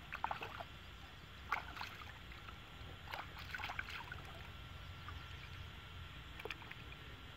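Hands dipping and swishing in shallow pond water at the bank, as in rinsing, in about four short splashy bursts: soon after the start, about a second and a half in, around three to four seconds in, and a small one near the end.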